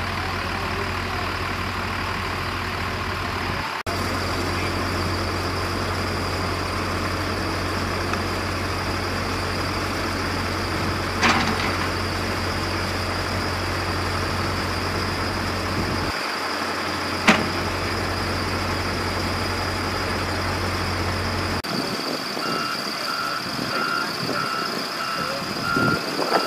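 Heavy construction equipment engine running steadily, with two sharp knocks, one about 11 seconds in and one about 17 seconds in, which are likely shovels striking concrete. The low engine drone drops away about two-thirds through, and near the end a vehicle's reversing alarm starts beeping in even pulses.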